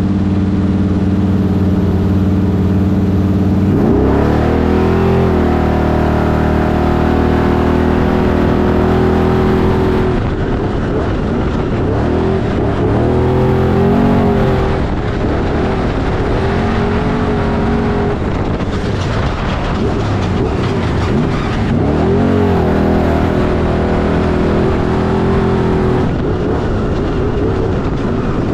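Off-road race vehicle's engine idling steadily, then revving up sharply about four seconds in. It runs hard from there, its pitch rising and falling repeatedly with throttle and gear changes.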